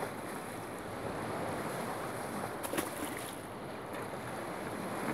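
Steady wash of wind and Lake Huron water, with wind buffeting the microphone and a couple of faint clicks a little past the middle.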